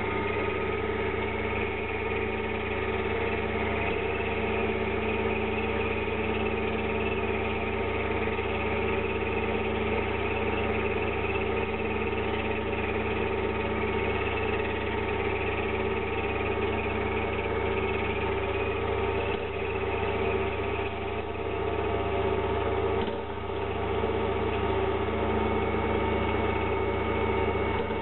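Mini 7x14 metal lathe running steadily with the chuck spinning: a continuous drone with several steady tones. There is a brief dip in level about 23 seconds in.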